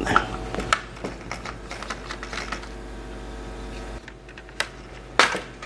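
Scattered light clicks and taps from the plastic and metal parts of a laptop being handled during disassembly, with a sharper click near the end. A faint low hum underneath cuts off about four seconds in.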